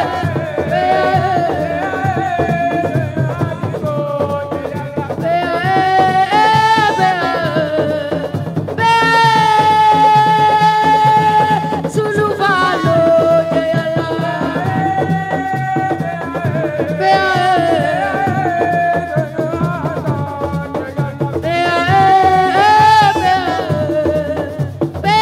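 Music: a voice singing a melody with long held, bending notes over a steady drum beat.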